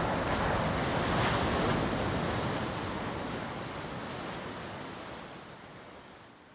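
Sea surf washing on a shore, swelling about a second in and then fading away steadily.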